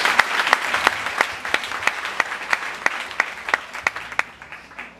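Congregation applauding, with loud, evenly timed claps about three a second standing out over the general clapping; the applause dies away near the end.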